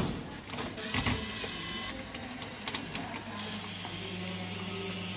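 Metallic clicks and rattling from a decoder tool working the lock cylinder of a vending machine, sharpest at the start and again about a second in, over a steady low hum.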